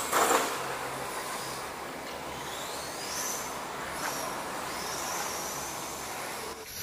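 Electric RC touring car's 13.5-turn brushless motor whining, its high whine rising in pitch several times as the car accelerates. A brief knock right at the start is the loudest sound.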